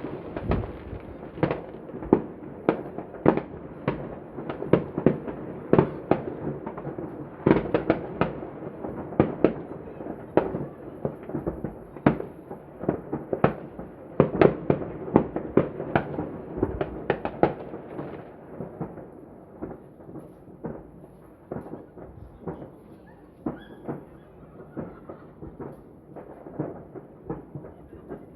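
Fireworks bursting overhead: a dense run of overlapping bangs, several a second, over a continuous rumble. After about two-thirds of the way through the bangs grow fewer and fainter.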